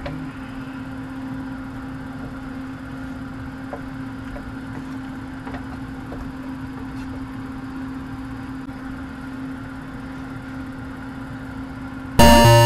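Steady motor hum over a stir-fry in a wok, with a few faint clicks of the wooden spatula against the pan. Loud music cuts in just before the end.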